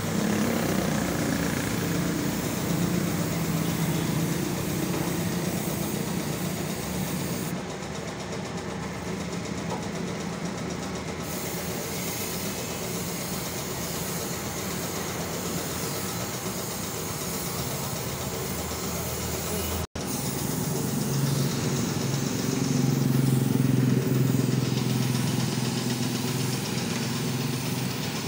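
Gravity-feed paint spray gun hissing with compressed air as it sprays paint onto a Honda 125 motorcycle fuel tank, over a steady low mechanical hum. The sound drops out for an instant about two-thirds of the way through.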